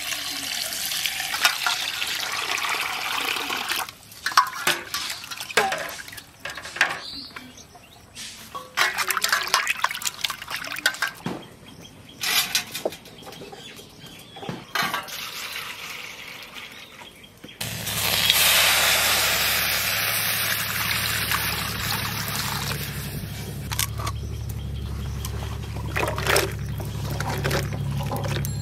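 Water splashing and sloshing in a steel bowl as raw fish pieces are washed by hand, with knocks against the metal. About two-thirds in, a steadier, louder rush of water begins, with a low hum beneath it.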